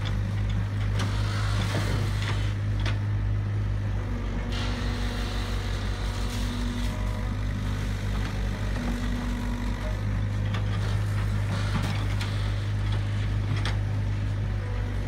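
Tracked excavator's diesel engine running steadily under work, with a faint tone that comes and goes and scattered knocks as the bucket digs in the ditch.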